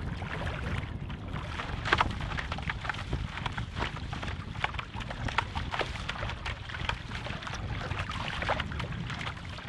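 Water splashing and rushing against the twin bows of a Starboard Serenity catamaran board as it moves across the water, in many short irregular splashes, with wind buffeting the microphone in a steady low rumble.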